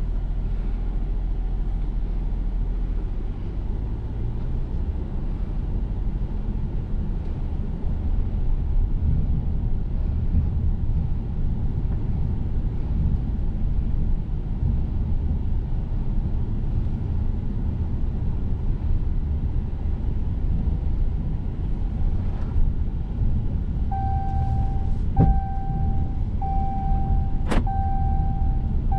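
Low, steady rumble like a motor vehicle running. Near the end an electronic chime repeats in short, even beeps, and two sharp clicks sound.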